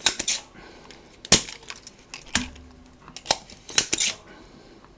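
A handful of sharp clicks and knocks of small hand tools and parts handled on a workbench, about seven over five seconds, the loudest with a short dull thud under it.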